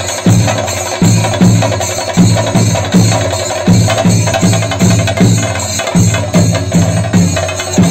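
Drums beating a steady, fast rhythm, with metallic clatter above the drum strokes.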